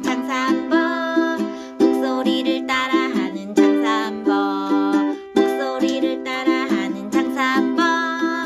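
Upbeat song with steady plucked-string chords and a melody line over them.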